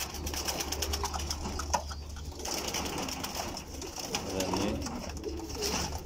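Domestic pigeons cooing, a few low rolling coos mostly past the middle, over a steady low hum.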